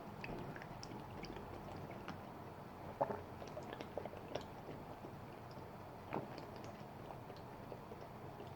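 Faint mouth and handling sounds of someone drinking from a 40-ounce bottle of malt liquor: small scattered clicks and taps, with a sharper knock about three seconds in and another about six seconds in.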